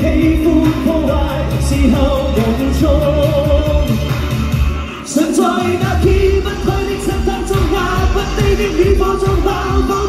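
A male singer sings live into a handheld microphone over an amplified pop dance backing track. The bass beat drops out for about a second and a half near the middle, then comes back.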